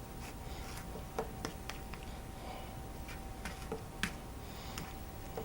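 A spoon clicking faintly against a bowl now and then while thick instant oatmeal is stirred, over a faint steady hum.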